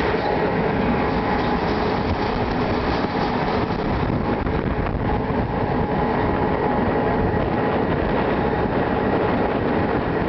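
A train running steadily along the track, heard from the locomotive's cab window: a continuous rail and running-gear noise with a faint steady hum over it.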